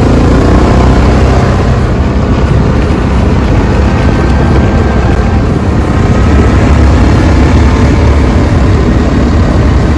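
ATV running at speed on a paved road, its engine mixed into a loud, steady rush of wind noise on the microphone.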